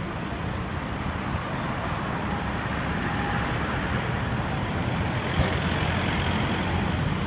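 Road vehicle engine and road noise, steadily growing louder as it approaches.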